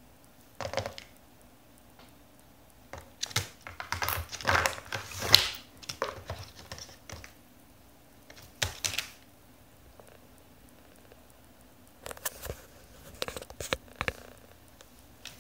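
A toucan's beak and feet tapping, knocking and rustling at a cardboard phone box and its cable: irregular runs of sharp clicks and scraping, busiest and loudest between about three and seven seconds in, with quiet gaps between.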